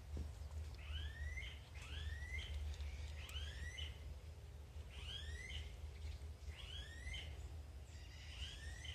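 A bird calling over and over, each call a short rising whistle with a hook at the top, about once or twice a second, over a steady low rumble.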